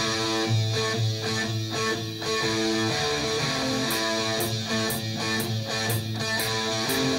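Background music with guitar; a light beat ticking about twice a second comes in about halfway through.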